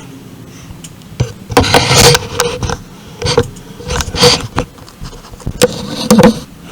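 Close handling noise: a run of irregular knocks, scrapes and rustles as a rifle and gear are moved and set in place.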